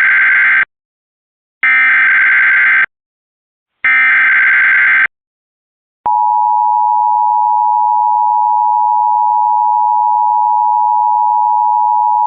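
Emergency Alert System SAME header: three bursts of digital data tones, each about a second long. From about six seconds in comes the steady two-tone EAS attention signal (853 and 960 Hz), which announces that a warning message follows.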